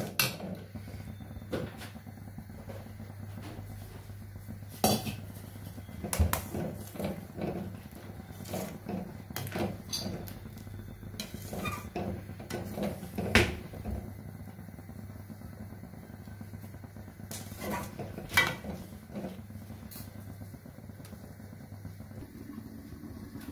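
Steel spatula scraping and clanking against a stainless steel pan as thick broken wheat rava kesari is stirred to mix in jaggery syrup. The knocks and scrapes are irregular, with a few louder clanks, over a steady low hum.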